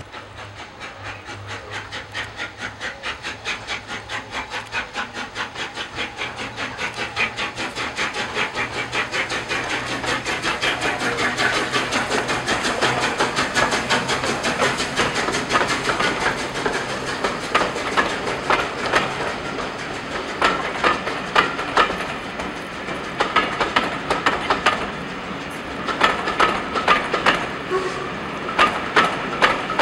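Royal Scot class three-cylinder 4-6-0 steam locomotive No. 46100 passing with a train, its chimney exhaust beating in a quick, steady rhythm that grows louder as it approaches. Once the engine is past, the coaches' wheels click sharply over the rail joints.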